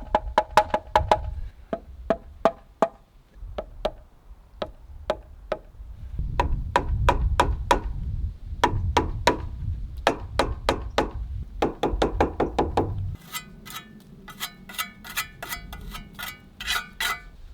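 Repeated sharp, ringing taps on a brick as it is bedded down and levelled in mortar. Near the end the taps turn higher-pitched and quicker, about four a second.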